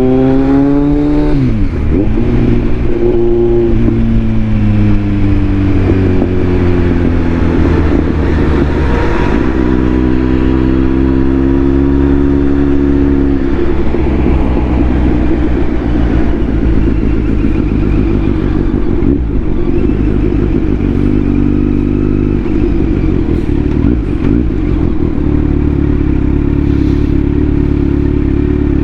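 Kawasaki Z900 inline-four engine running with its airbox removed, so the intake is open. The pitch drops sharply about two seconds in, then holds fairly steady with a few small step changes.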